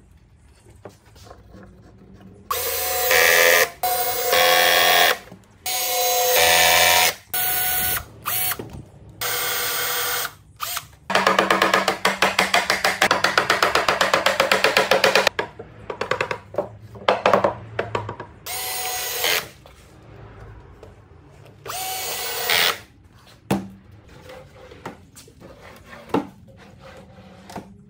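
Cordless drill-driver running in a series of short bursts, its motor whine starting and stopping again and again. Around the middle comes a longer run of about four seconds with a fast rattling pulse. Scattered sharp wooden knocks fall between the bursts.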